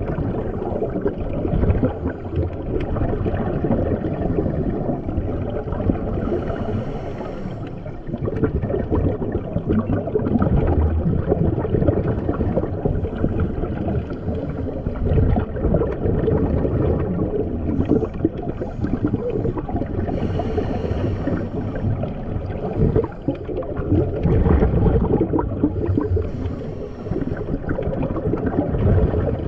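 Muffled underwater noise as picked up by a camera in a waterproof housing: a dense low wash of water sloshing and gurgling that swells and ebbs, with a few brighter bubbling bursts.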